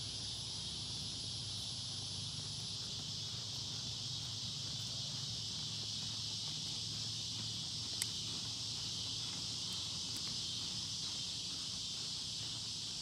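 Steady, unbroken chorus of insects, with a low hum beneath it. A single sharp click comes about eight seconds in.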